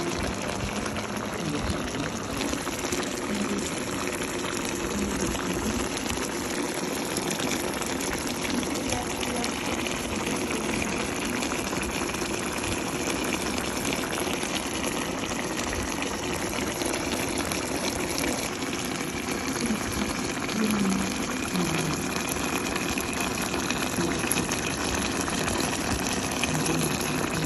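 Sweet-and-sour sauce with beef and vegetables boiling in a wok, a steady bubbling hiss.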